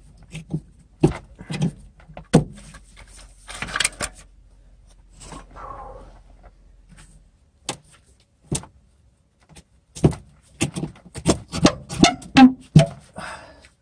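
Old wooden support posts being worked loose and pulled out from under a floor beam: a scatter of sharp wooden knocks and clacks, thickest and loudest in the last few seconds.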